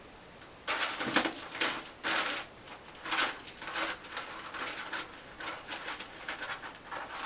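Irregular rustling and small clicks of hair being handled as hair clips are taken out, starting about a second in.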